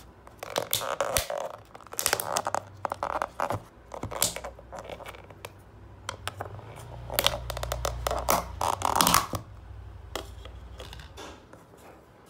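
A thin clear plastic cake tub and its snap-on lid handled and pried at, crackling, creaking and clicking in two spells of rasps.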